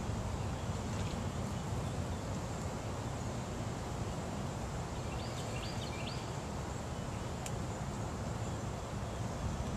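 Outdoor pondside ambience: a steady low rumble of wind on the microphone under a thin, steady high-pitched insect drone, with a short run of bird chirps about five seconds in.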